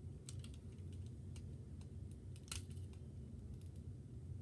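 Small clicks and snaps of plastic LEGO bricks being handled and pried apart, a handful of light clicks with a sharper one about two and a half seconds in, over a faint steady low hum.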